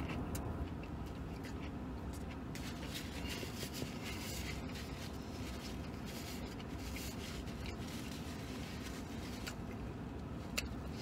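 Soft rustling of a paper napkin wiped across the mouth and of the cardboard sandwich box, with scattered small clicks, over a steady low hum while a mouthful of sandwich is chewed.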